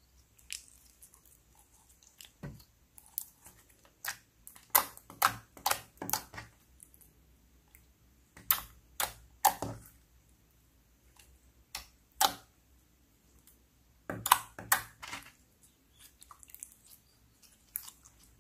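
Clear slime being squeezed and folded by hand, giving crisp clicking and popping sounds. The clicks come in several quick runs with short quiet pauses between them.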